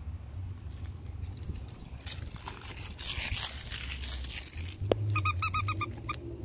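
Squeaky dog toy squeezed in a quick run of about eight short squeaks, about five seconds in.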